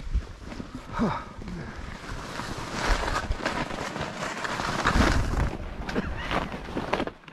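Skis sliding and scraping downhill over crusty snow with a thin layer of powder, with wind buffeting the microphone; loudest in the middle.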